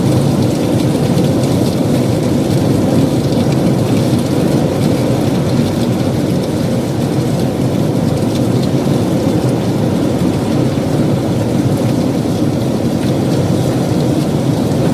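Heavy downpour of rain, a loud, steady rush with a fine patter of drops.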